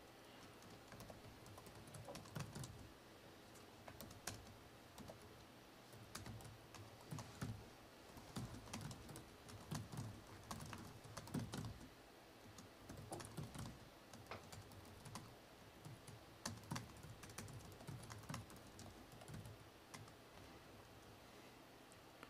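Faint typing on a laptop keyboard: irregular runs of key clicks with short pauses, over a low room hum.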